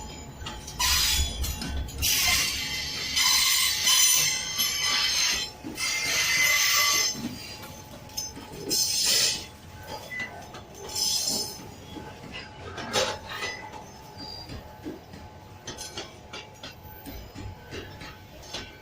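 Railway cars rolling past on the track, with stretches of high metallic wheel screech and clanking that are loudest over the first several seconds, then come back in shorter bursts.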